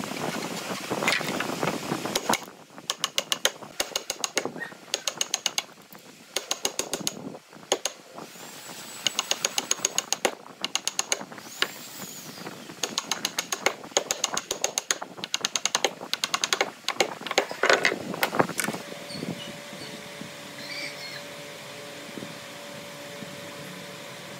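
Rapid, repeated strokes of a hand tool cutting into a small pine block clamped to a wooden bench, in quick runs of sharp rasping clicks with a metallic ring, stopping about three-quarters of the way through. A steady low hum follows.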